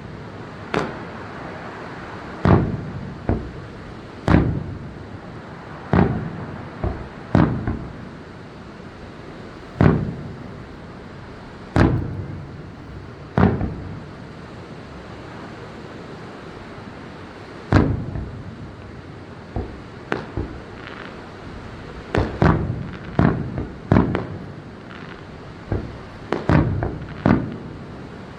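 Aerial fireworks bursting: sharp booms every second or two, some in quick clusters of two or three, each trailing off in a short echo, over a steady murmur of background noise.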